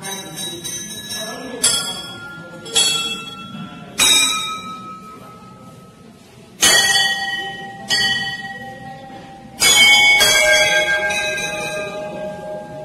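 Hanging brass temple bells rung by devotees: about eight strikes at uneven intervals, a second or more apart. Each strike rings out with several clear tones and slowly fades, and the strongest comes about ten seconds in.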